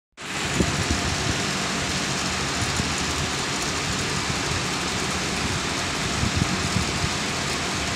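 Steady rushing noise of a garment factory floor, the air of large industrial fans and ventilation, with irregular low rumbling bumps underneath.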